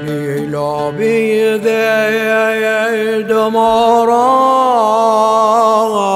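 A male voice chants a Syriac Orthodox church hymn in long, held, ornamented notes over steady instrumental backing.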